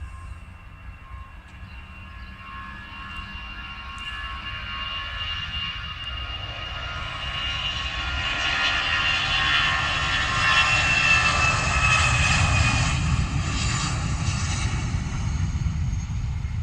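Jet engines of an Airbus A319-112, CFM56 turbofans, during takeoff: a steady rumble with several high whining fan tones. It grows louder for about ten seconds, then eases slightly near the end.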